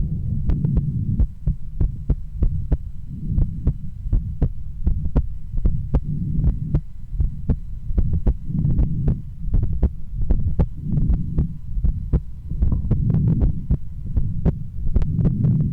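A woman's heartbeat heard through a stethoscope chest piece: a steady run of sharp thuds with a low rumble underneath that swells and fades every few seconds.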